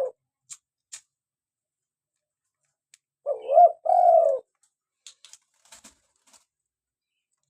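Spotted dove cooing: the tail end of a call right at the start, then about three seconds in one full phrase of about a second, a quick rising-and-falling note followed by a longer drawn-out coo. A few faint clicks in between.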